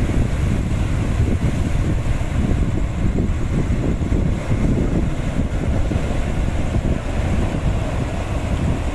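Surf breaking and washing against a rocky shore, under heavy wind buffeting the microphone with a steady low rumble.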